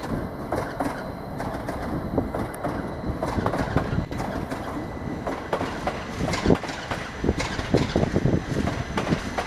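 A train running into the station, its wheels clattering over the rail joints in a run of irregular clicks over a steady rumble.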